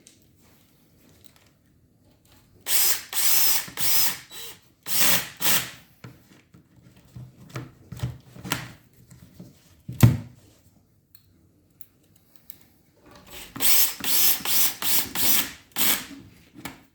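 Power drill-driver driving bolts into a drawer panel in short bursts: two runs a few seconds in, then a quick series of short pulses near the end. A single sharp knock about ten seconds in.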